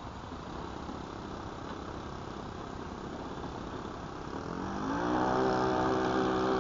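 Saito FA-62 four-stroke glow engine on a model plane, throttled up about four and a half seconds in for the takeoff roll: its pitch rises quickly, then holds steady and louder at high revs. Before that there is only a low, steady noise.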